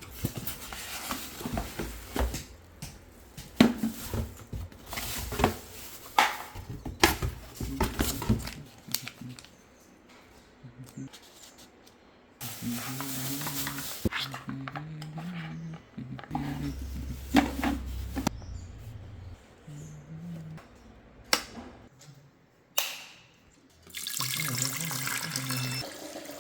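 Water running from a tap in several bursts, with clicks and knocks of handling in between.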